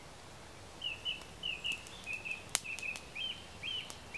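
A small songbird calling a quick run of short high chirps, about two or three a second, starting about a second in. Under it, a few faint crackles from a small tinder fire, with one sharp snap about halfway through.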